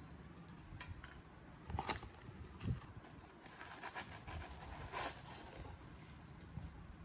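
A cardboard shipping box being opened by hand: scattered scrapes, taps and tearing of the taped flaps, with a low knock a little before the middle. Near the end, crinkly honeycomb paper packing is pulled out.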